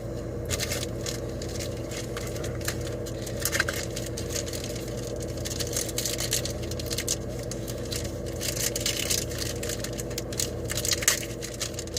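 Trading card pack wrapper crinkling and cards being shuffled and handled, in irregular crackly rustles, over a steady low hum.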